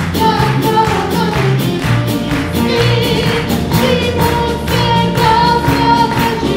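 Stage ensemble of mixed voices singing a lively song together, backed by a band with a moving bass line and a steady beat.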